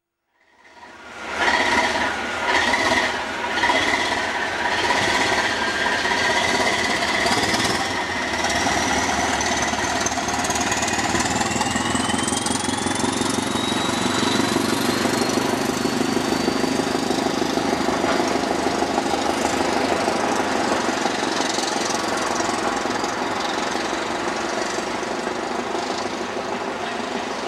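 NIR 80 Class diesel-electric multiple unit's English Electric four-cylinder engine thumping under power as the unit pulls away, with a whine that rises in pitch as it gathers speed and then holds steady. The sound eases slightly as the unit draws away.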